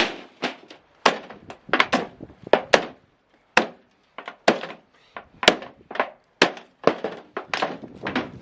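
Hammer driving nails: about fifteen sharp blows at an uneven pace, the first the loudest.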